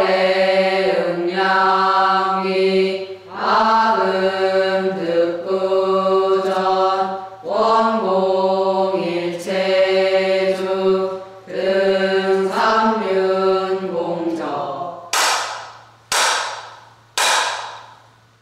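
Buddhist nuns chanting in unison in long, drawn-out phrases over a steady low hum. Three sharp strikes follow near the end, about a second apart, each ringing briefly as it fades.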